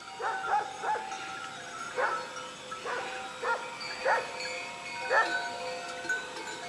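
Large sheepdogs guarding a flock, barking repeatedly: about eight loud barks spaced unevenly. Several steady ringing tones sound under the barks throughout, typical of sheep bells on the flock.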